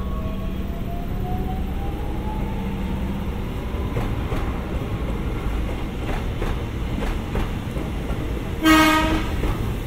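Japanese-built electric commuter train moving along the platform. Its motor whine rises slowly in pitch over the first few seconds as it gathers speed, then the wheels clack over rail joints. A loud train horn gives one short blast near the end.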